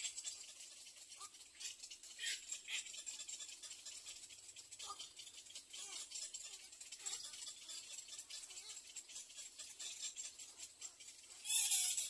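Little egret chicks giving a rapid, rattling, clicking begging chatter, with a louder burst just before the end.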